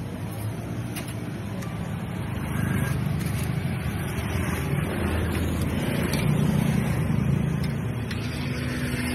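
A motor vehicle's engine running close by, growing louder about a third of the way in and easing off near the end, over steady street noise.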